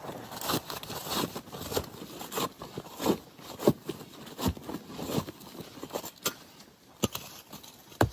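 Irregular knocks and scraping, roughly two a second, with two sharper knocks near the end.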